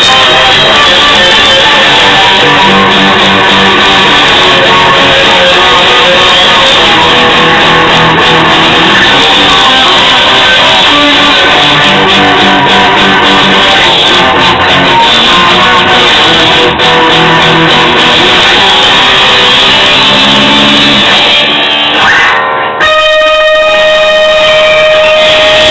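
Guitar played very loud, a dense run of shifting notes and strums. A little after twenty seconds in it breaks off briefly, and one steady held tone rings on to the end.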